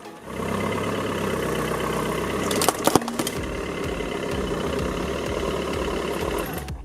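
Car engine running steadily, with a few sharp cracks about three seconds in as something is crushed.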